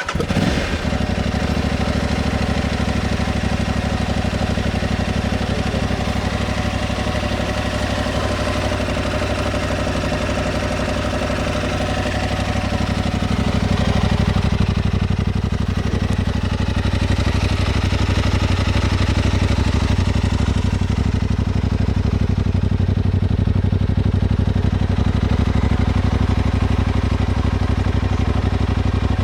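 Aprilia Tuareg 660's parallel-twin engine idling steadily, its note changing and getting a little louder about halfway through.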